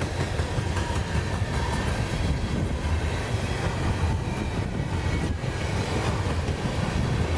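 Freight train of railroad tank cars rolling past at close range: a steady low rumble of steel wheels on rail.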